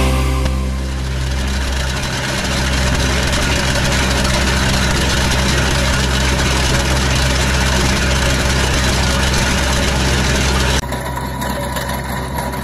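Engine of a mini track loader running steadily under load while its Ditch Witch trencher attachment's digging chain cuts through rocky clay. The sound steps down abruptly about eleven seconds in and carries on slightly quieter.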